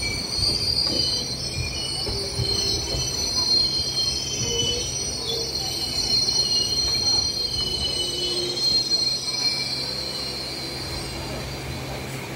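Steel wheels of a passenger train squealing high and wavering against the rails as the coaches round a curve, with knocks from the wheels over the track. The squeal fades away about three-quarters of the way through, leaving a steady low rumble of the running train.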